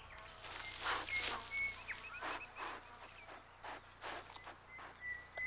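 Grey kangaroos shuffling and rustling in grass during mating, soft and irregular, with faint high bird chirps in the background.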